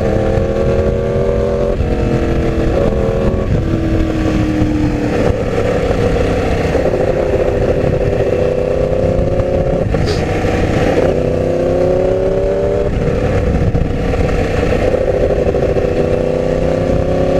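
Yamaha R1 inline-four engine running under way, its pitch climbing in several pulls with drops between them as it shifts up through the gears, over steady wind rush.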